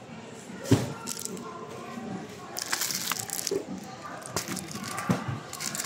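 Plastic-wrapped packs of paper being handled, the wrap crinkling, with a sharp knock less than a second in and a few softer knocks later. Faint voices in the background.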